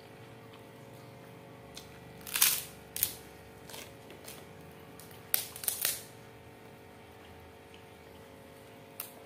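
Banana-leaf and paper food wrapper rustling and crinkling in several short bursts as rice is scooped from it by hand, the loudest about two and a half seconds in and a cluster around five to six seconds, over a faint steady hum.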